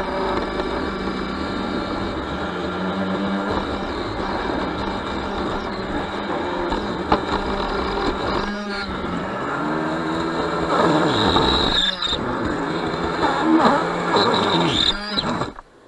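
Small RC speedboat's motor whining, heard from a camera on its deck, over water splashing and hissing against the hull as it runs through surf. In the second half the motor's pitch rises and falls several times as the throttle changes.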